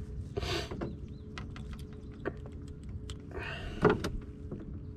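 A fishing reel being cranked in two short whirring bursts as a small bluegill is reeled in, with light clicks throughout and a louder knock about four seconds in.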